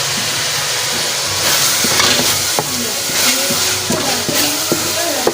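Beef keema frying in a karahi: a steady sizzling hiss, with a few sharp clicks in the second half.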